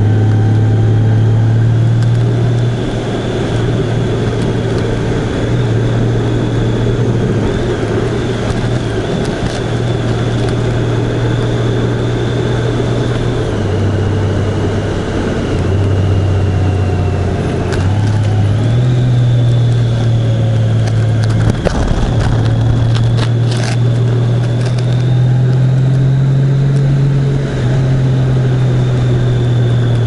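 Vehicle engine running under way with road noise. Its pitch steps down and back up several times as the speed changes, with a faint high whine that moves with it. A few clicks and a knock come about two-thirds of the way through.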